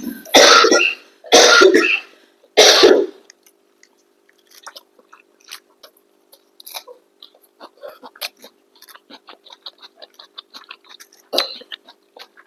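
A person with a cold coughing hard three times in quick succession, then the quiet clicks and smacks of chewing food, and one more cough about a second before the end.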